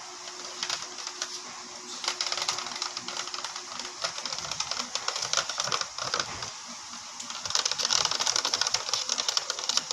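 Rapid, irregular clicking and scraping of a homemade glue-and-detergent slime mixture being stirred in a plastic box, growing louder and faster about two-thirds of the way in.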